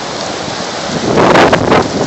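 Strong wind gusting and rushing over a phone microphone, with a louder gust about a second in.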